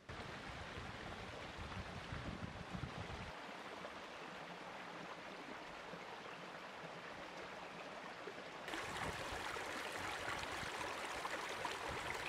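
Shallow creek water running over a rocky bed, a steady rushing with a low rumble in the first three seconds. About nine seconds in it turns louder and brighter, water spilling through a small cascade between rocks.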